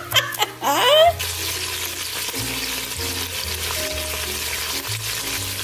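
Bacon strips sizzling as they fry in a Dutch oven: a steady frying hiss that starts about a second in.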